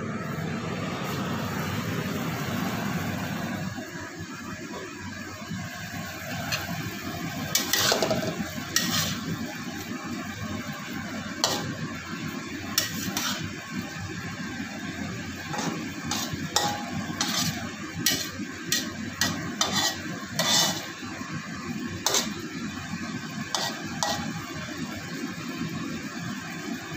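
Water spinach stir-frying in a wet wok, sizzling steadily, while a metal ladle scrapes and clinks against the wok. The clinks come often and irregularly from about seven seconds in.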